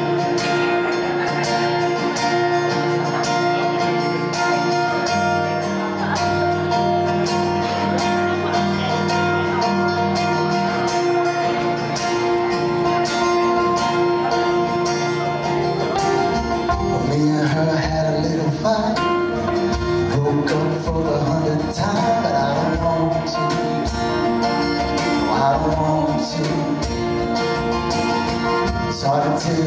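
Live acoustic band playing an instrumental intro: two acoustic guitars strummed in steady chords, with djembe hand-drum beats coming in about halfway through.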